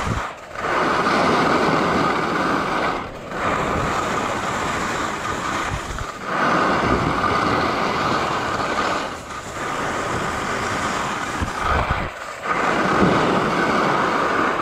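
Skis carving turns on firm groomed snow, the edges scraping in a steady hiss that eases briefly between turns, about every three seconds.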